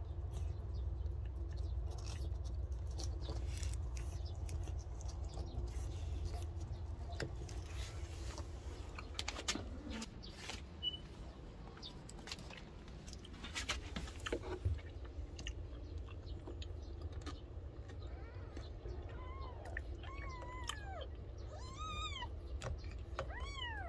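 A cat licking at a squeeze tube of Churu, with scattered faint wet clicks, then near the end a kitten mewing: four or five short, high, arched cries.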